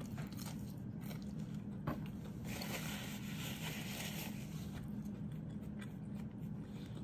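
Quiet eating sounds: food being pulled apart by hand, with a soft rustling hiss from about two and a half to four seconds in, then chewing. A steady low hum lies underneath.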